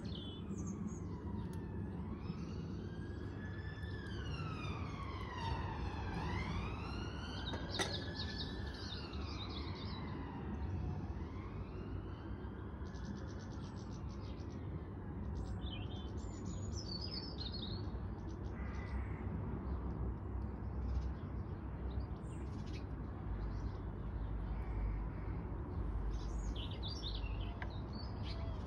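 A distant siren wailing slowly up and down for about the first half, then fading out. Small birds chirp now and then through the second half, over a steady low background rumble.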